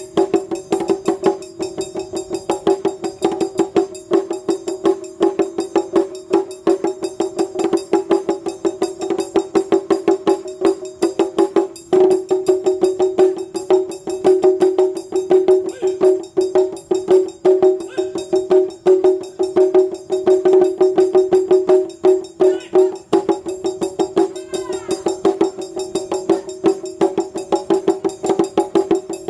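Ensemble of Japanese taiko drums playing a fast, dense rhythm of sharp, rapid strokes, with a brief break about twelve seconds in.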